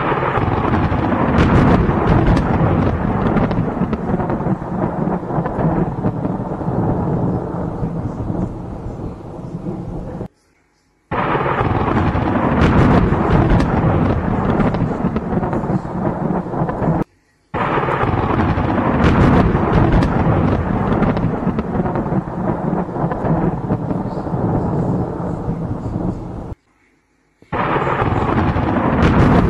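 Thunder rumbling in long, loud rolls during a thunderstorm. The sound cuts out abruptly three times, for under a second each.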